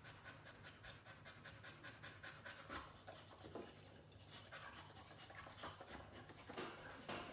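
Boxer dog panting quickly and evenly, about four breaths a second, with a few louder breaths; faint.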